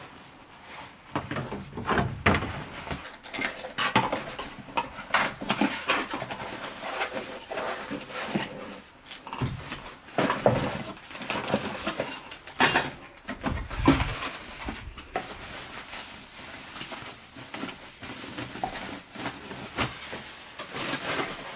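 An outdoor light fixture being unpacked by hand from its cardboard box and plastic bag: irregular rustling and crinkling of packaging with light clattering of the fixture and its small parts, and a sharp crinkle about halfway through.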